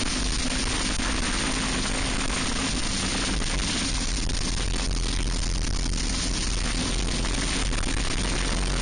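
Racing kart's Briggs & Stratton Animal four-stroke engine running hard at racing speed, heard from a camera mounted on the kart, with a dense rush of wind and tyre noise over it.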